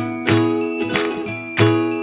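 Background music: a light, tinkling children's-style tune of bell-like struck notes over a low bass note.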